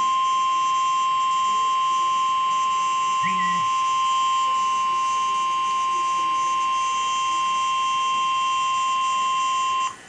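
NOAA Weather Radio / Emergency Alert System 1050 Hz warning alarm tone: one steady, loud single-pitch beep that cuts off abruptly near the end. It signals that a severe thunderstorm warning message follows.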